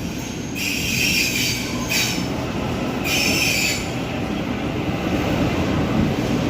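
Electric suburban train moving along the station platform with a steady low rumble. Three bursts of high-pitched wheel squeal come in the first four seconds, then the rumble carries on alone.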